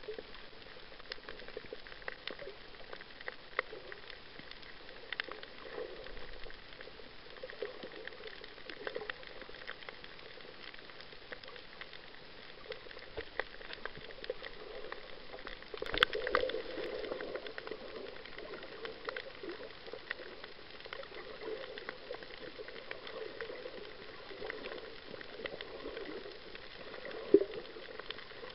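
Underwater coral-reef ambience: a constant crackle of tiny clicks from snapping shrimp over a low rush of water. There is a louder knock about sixteen seconds in and a single sharp click near the end.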